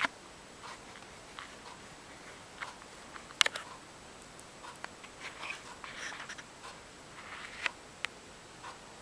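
Quiet room with scattered soft rustles and small clicks, a sharper click a little over three seconds in and a run of light rustling in the second half.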